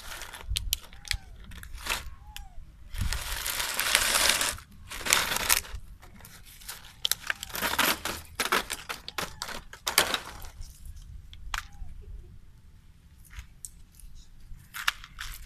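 Plastic bottle crinkling, crunching and scraping on concrete as monkeys grab and gnaw at it: many sharp crackles, with longer stretches of rustling at about three to four and a half seconds and again near eight seconds.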